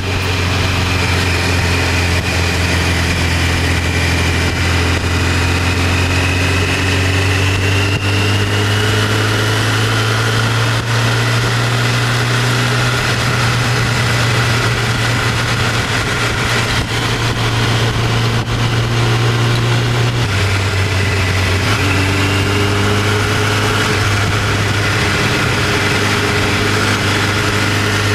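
Motorcycle engine running steadily at road speed under constant wind rush, its pitch shifting a few times.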